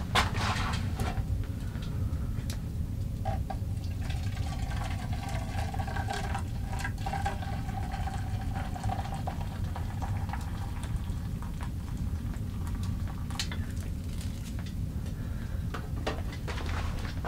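Hot coffee poured from a titanium percolator into a metal canteen cup, a liquid pour for several seconds starting a few seconds in, with metal clinks as the cup and pot are set on the wood stove's rack. A steady low rumble lies under it.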